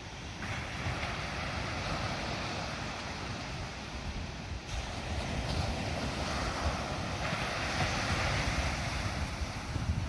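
Ocean surf breaking and washing up the beach, swelling about half a second in and again around five seconds in, with wind buffeting the microphone.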